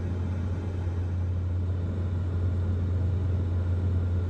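Steady low hum with a noise hiss from an electric-car fast charger and the charging car, a sign that the charging session is running.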